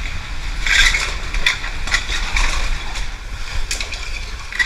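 Scrapes and knocks of a caver moving through a tight rock passage, gear and boots rubbing and bumping on the rock, over a low steady rumble.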